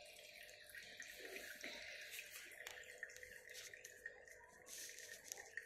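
Small tabletop fountain's water trickling and dripping into its basin, faint and steady with many small drip sounds.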